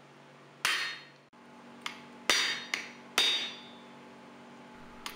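Hammer blows on a hot set (hot-cutting chisel) held on a red-hot steel bar over the anvil, splitting the bar. Three sharp ringing metallic strikes, with two lighter taps between them.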